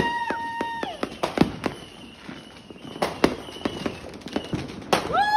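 New Year's fireworks and firecrackers going off: a run of sharp bangs and crackling pops. A steady high-pitched tone sounds over the start, stops about a second in, and comes back near the end.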